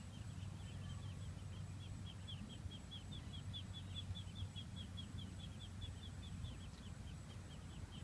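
Ducklings peeping: a steady run of short, high, slightly falling peeps, about five a second, over a low rumble.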